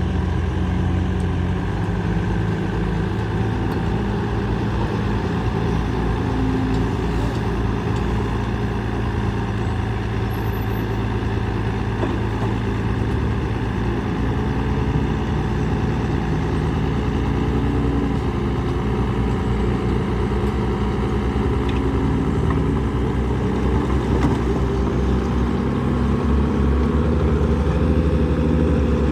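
Heavy earthmoving machinery's diesel engine running steadily for the whole stretch, with a continuous low drone.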